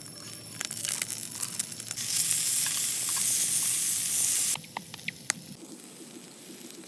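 Food sizzling as it fries over a campfire, with crackling at first, then a loud, steady sizzle that cuts off suddenly about four and a half seconds in, followed by a few short high squeaks.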